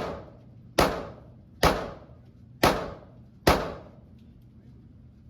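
Gunshots from a firearm being fired at a range: five shots in a steady string about a second apart, each trailing off in an echo, then the firing stops.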